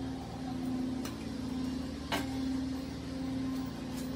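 Steady hum of an air conditioner running, with a tone that comes and goes. A single sharp knock about two seconds in, as a brick is set down by the motorcycle stand.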